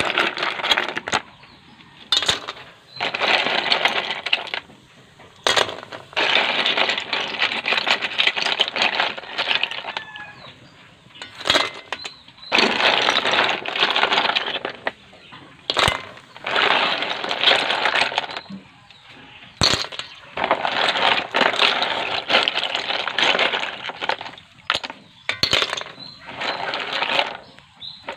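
Handfuls of cockles and sea-snail shells clattering and scraping against each other, in repeated bursts a second or two long with short pauses between, and sharp clinks of shell on shell.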